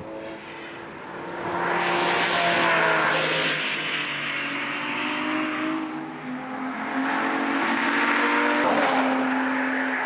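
A six-cylinder sports car's exhaust note under hard acceleration on a race track. The engine pitch rises, falls back about halfway through, then climbs again as a car comes on.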